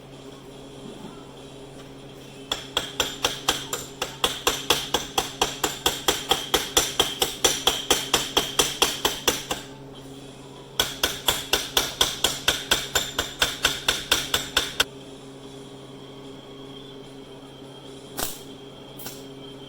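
A hand hammer rapidly tapping on a weld bead on a cast iron engine block, about five or six even, ringing strikes a second, in two long runs with a short break between. Two single knocks follow near the end, over a steady low hum.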